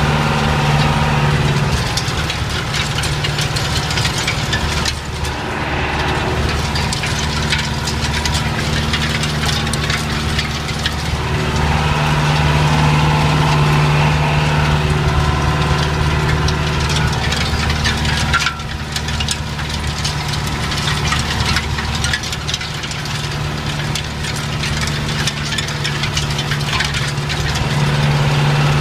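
John Deere tractor's diesel engine running steadily under load while cultivating a field, heard from inside the cab, a constant low drone with light rattling on top.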